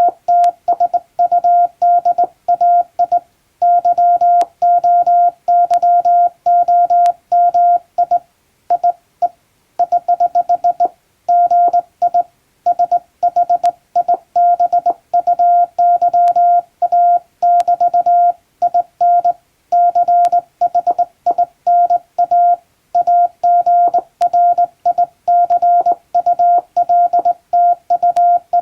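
Morse code sent by hand on a JRC telegraph key: a steady single-pitch tone keyed on and off in a continuous run of dits and dahs, with short gaps between letters and words, spelling out an English-language telegram.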